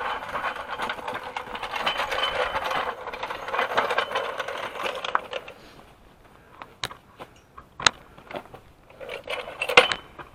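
Car jack being handled: a dense metallic rattle for about five seconds, then a few sharp separate clanks.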